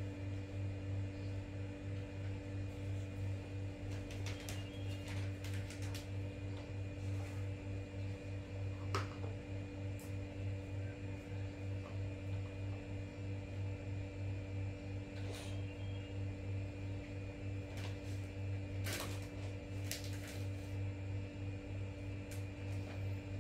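Steady low mechanical hum, like a fan or household appliance running, with a few faint clicks over it.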